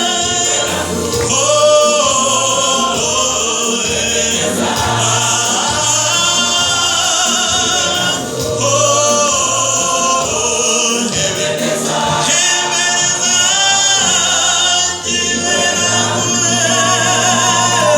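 A choir singing a gospel praise song in full voice, with steady low notes underneath.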